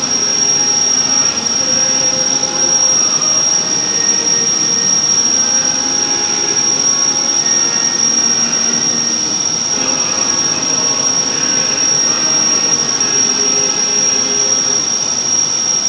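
Cabin noise of a car driving at steady speed: constant road and engine noise, with a steady high-pitched whine over it.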